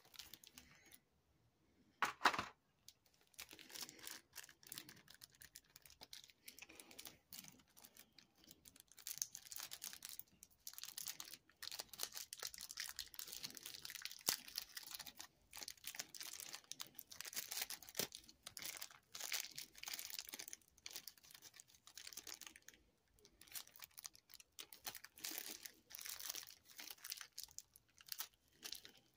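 Plastic packaging crinkling and rustling as it is handled, with many small irregular crackles. A brief loud clack comes about two seconds in.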